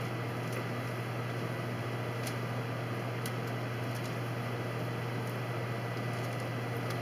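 A steady low hum over an even hiss, like a fan or small motor running, with a few faint high ticks.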